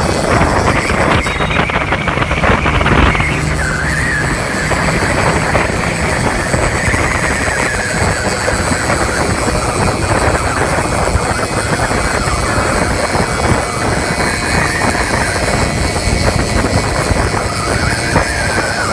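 Qingqi motorcycle rickshaw engines running at speed, loud and continuous.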